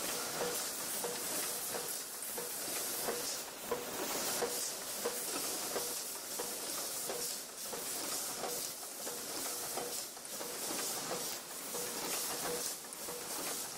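Automatic chain-making machine running, bending wire into links: a rhythmic clatter at about two strokes a second over a steady hiss.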